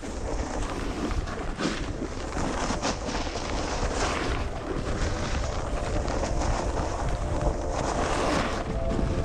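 Snowboard sliding and carving on packed snow, its edges scraping in several louder swells through the turns, with wind rushing over the microphone.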